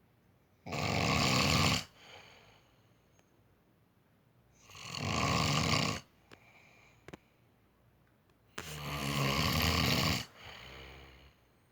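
A man snoring loudly in his sleep: three long snores about four seconds apart, each followed by a shorter, quieter sound.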